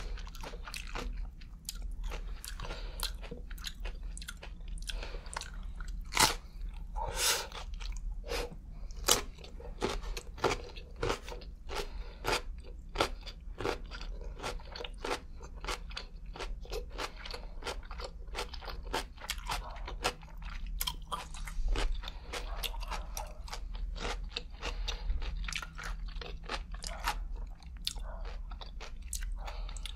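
Close-miked crunching and chewing of a gherkin pickle with a slice of cured meat: many sharp crunches in quick succession, the loudest about six and nine seconds in.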